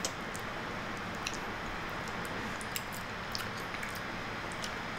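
Two people sucking a very thick milkshake through plastic straws: a steady airy hiss of sucking, broken by small mouth clicks and lip smacks about half a dozen times.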